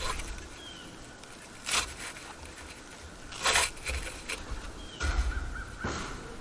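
Four short, harsh bird calls, spaced a second or two apart, over a low outdoor background.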